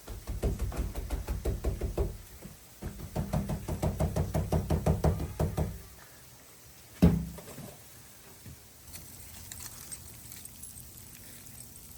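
Rapid, evenly spaced knocking in two runs of a few seconds each, then a single sharp knock about seven seconds in.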